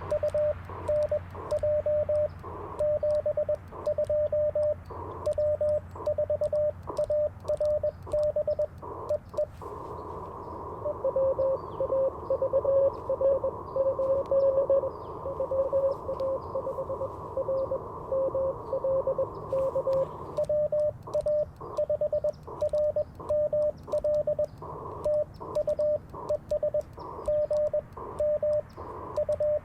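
Morse code on an Icom IC-705: the sidetone of CW being sent, a clean keyed steady tone, with light key clicks. About ten seconds in the radio switches to receive: band hiss and a weaker, slightly lower Morse signal from the other station, fading in and out with QSB. About twenty seconds in the sending sidetone starts again.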